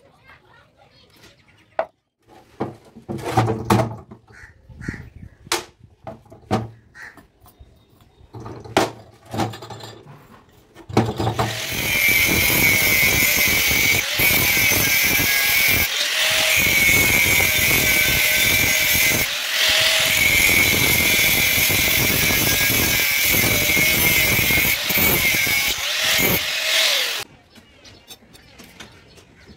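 Hand-held angle grinder cutting through a steel bar, a loud steady whine lasting about sixteen seconds that stops abruptly. Before it, scattered knocks and clicks.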